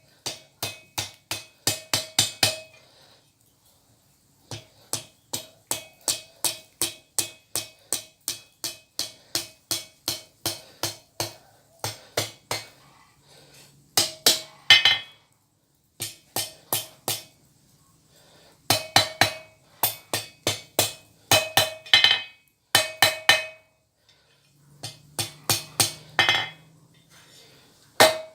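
Blacksmith's hand hammer striking hot steel on an anvil while forging tong jaws. The blows come in quick runs of about three or four a second, each with a ringing note from the anvil, with short pauses between runs.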